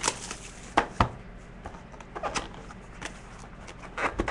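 A cardboard trading-card box being handled and opened: several sharp knocks and taps, the loudest about a second in and near the end.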